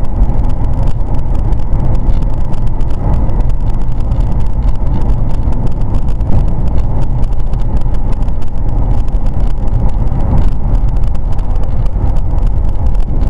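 Car driving at road speed, heard from inside the cabin through a dashcam microphone: a loud, steady rumble of road, tyre and engine noise, heaviest in the low end.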